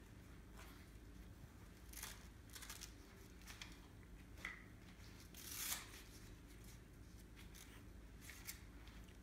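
Faint handling noises from a portable cane chair being set up: scattered light clicks and rustles of its plastic tube legs, strap and seat, the loudest a short rustling swish about five and a half seconds in.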